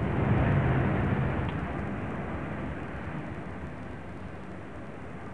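A car passing close by: engine and tyre noise swell to a peak about half a second in, then fade slowly as it moves away, over a steady low traffic hum.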